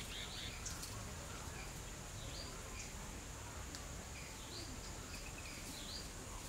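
Rural outdoor ambience: scattered short bird chirps, several a second at times, over a steady high insect drone and a low background rumble.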